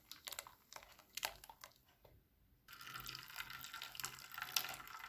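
Blended watermelon juice straining through a plastic mesh strainer into a steel bowl: scattered drips and splashes at first, then from about two and a half seconds in a steady faint hiss as a spoon works the pulp through the mesh.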